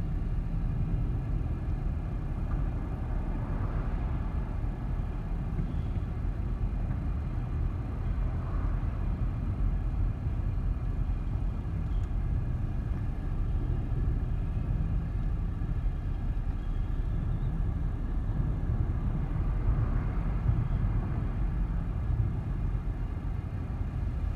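Steady low rumble of a car's engine and tyres, heard from inside the cabin as the car moves in slow traffic.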